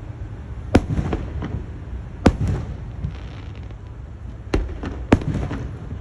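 Fireworks going off: four sharp bangs, about a second in, about two seconds in, and two close together near the end, each followed by a short trail of smaller crackles.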